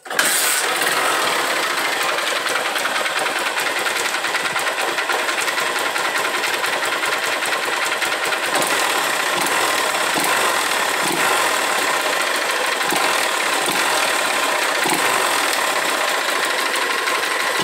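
A Honda CG Titan 150's single-cylinder four-stroke engine starts and idles with a loud mechanical rattle. A knock from the side of the engine is put down to the clutch basket or the balancer gear. A clatter on top of the cylinder could be piston slap, though it is easily confused with a worn cam chain.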